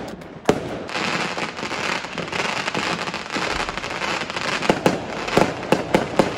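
Fireworks going off: a sharp bang about half a second in, a dense hiss for a few seconds, then a quickening series of sharp bangs and pops near the end.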